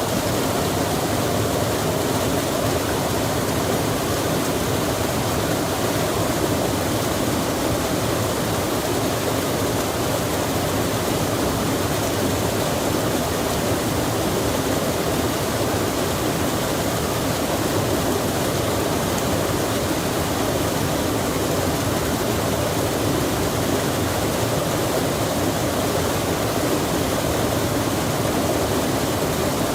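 Rain falling by a flowing stream: a steady, even rush of water with no breaks.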